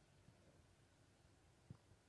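Near silence: room tone, with one faint tick near the end.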